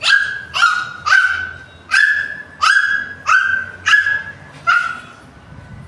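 A young child imitating a puppy's yipping bark: a run of eight short, high yips in an even rhythm, stopping near the end.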